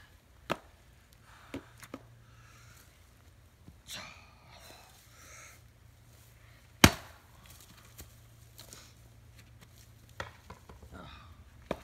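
An 8-pound steel splitting maul striking firewood rounds: several lighter wooden knocks, with one heavy blow about seven seconds in that is much louder than the rest.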